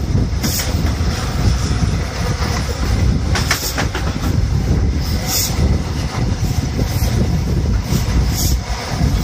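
InterCity 125 (HST) train running at speed over a steel girder bridge, heard through an open window: a steady heavy rumble of wheels on rail, broken by a few brief louder swishes.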